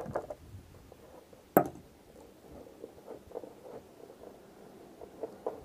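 Steel roller chain being handled and worked apart by hand: one sharp metallic click about a second and a half in, then light, irregular clinks and rattles of the links.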